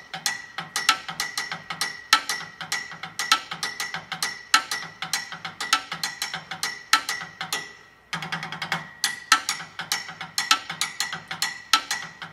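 Drumsticks played in a fast, busy groove on found surfaces on a boat dock, sharp clicky strikes over a steady ringing tone. The playing breaks off for a moment about eight seconds in, then picks up again.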